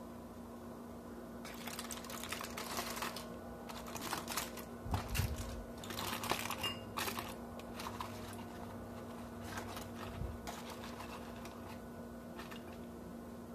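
Aluminium foil and a cooked banana-leaf wrapping crinkling and rustling in irregular bursts as a hand peels them open, with a low bump about five seconds in. A steady low hum runs underneath.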